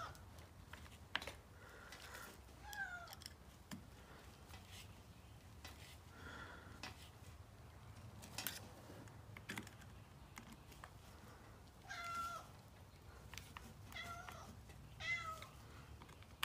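A domestic cat meowing several times, quietly, each short call falling slightly in pitch. A few light clicks come between the calls.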